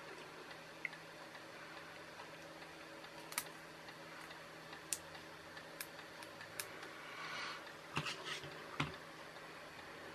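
Faint, scattered small clicks and taps from hands handling a small soldered circuit board and its wire leads, with a brief rustle about seven seconds in and a few louder clicks near eight and nine seconds, over a faint steady hum.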